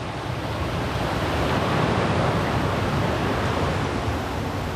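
Waterfall cascades, a steady rush of falling water with no breaks.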